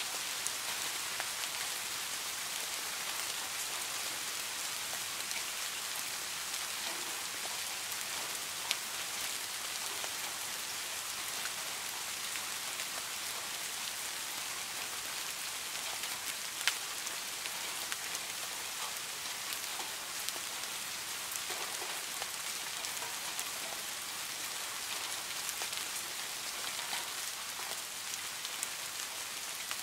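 Steady rain falling on a garden pond, an even hiss of drops hitting the water with now and then a single close drop standing out sharply.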